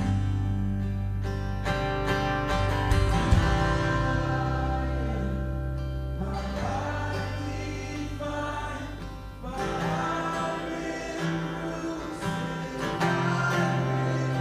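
Worship music: acoustic guitar over held bass notes, with singing.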